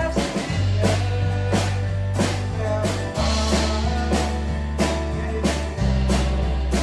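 Background rock music with a steady drum beat over a held bass line that changes note every few seconds.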